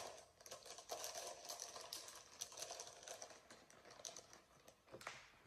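Quiet rustling and crinkling of a plastic bag of shredded cheese as the cheese is sprinkled over the lasagna, a dense run of small quick crackles with a louder cluster about five seconds in.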